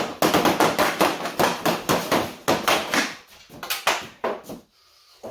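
Hockey stick blade tapping rapidly in stickhandling, about five sharp taps a second, slowing and thinning out after about three seconds.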